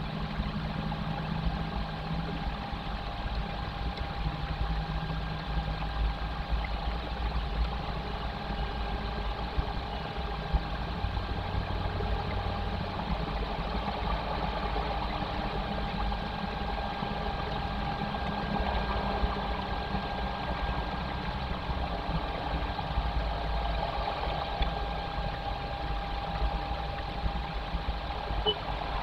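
Steady low rumble and hiss picked up by a nest-box webcam microphone, with a faint steady whine running through it.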